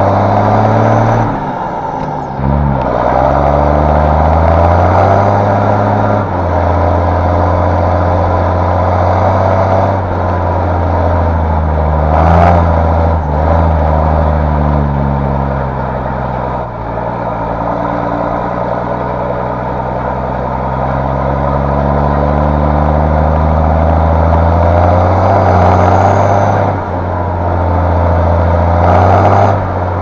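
A tractor's diesel engine running, heard from inside the cab, its revs slowly rising and falling. There is a single clunk about twelve seconds in.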